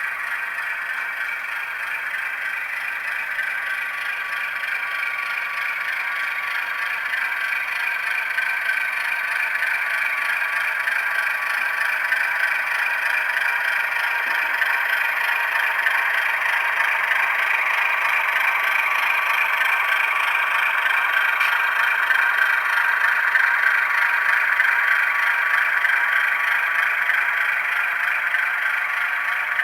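Sound decoder of an HO-scale Baldwin AS616 model diesel locomotive playing a steadily running diesel engine through its small onboard speaker, thin and without bass. It grows slowly louder, then eases slightly near the end.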